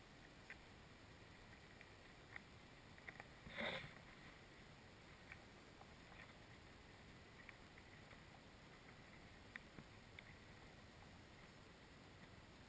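Near silence underwater, with a handful of faint scattered clicks and one brief louder knock a little under four seconds in.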